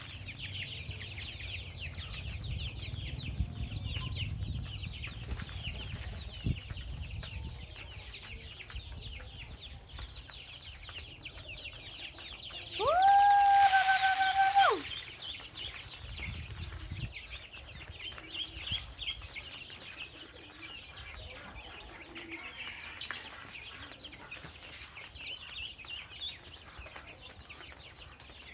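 Many young chicks peeping without pause while they peck at feed. About halfway through, a loud call of about two seconds cuts over them: it rises, holds one pitch, then drops, like a rooster's crow.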